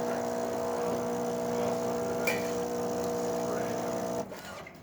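Krups EA9000 automatic espresso machine running with a steady mechanical hum of one pitch, which cuts off suddenly about four seconds in.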